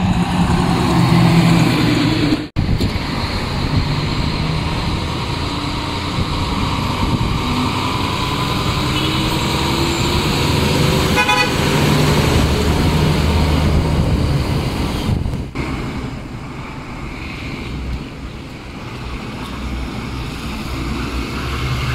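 Diesel engines of heavy dump trucks (Kenworth and Western Star) driving past one after another in city traffic. In the middle stretch one truck pulls away with its engine pitch rising, and a short high toot sounds about eleven seconds in.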